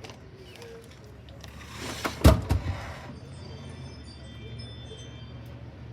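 A door sliding shut with a thud about two seconds in, then a faint steady hum.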